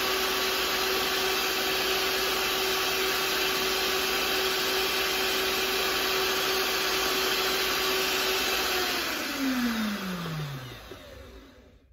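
Sunbeam stand mixer running steadily, its beaters turning through chocolate cake batter in a stainless steel bowl. It is switched off about nine seconds in, and its whine falls in pitch as the motor winds down to a stop.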